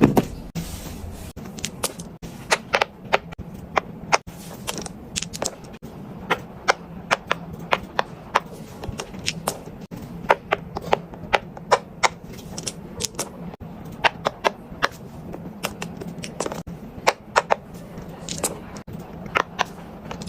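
Fidget toy being clicked: a long run of sharp, irregular clicks, often in quick pairs or small clusters, over a faint steady low hum.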